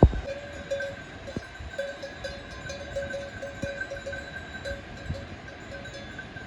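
Livestock bells clinking on and off in an irregular pattern, with a sharp knock right at the start.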